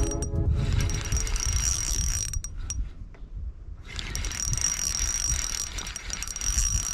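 Spinning fishing reel being cranked, its gears whirring with rapid ticking as line is retrieved. The whir stops for about a second and a half near the middle, then starts again.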